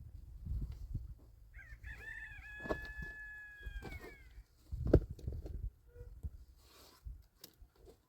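A rooster crows once, a single call of about three seconds that wavers at the start, holds its pitch and drops away at the end. Low knocks and handling noises run underneath, and a sharp thump comes about five seconds in.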